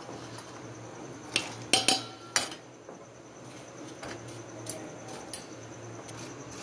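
Knife and tomato pieces clinking against a stainless steel plate and bowl while a tomato is cut. A cluster of sharp metallic clinks comes between about one and a half and two and a half seconds in, a couple of them ringing briefly, with lighter taps afterwards.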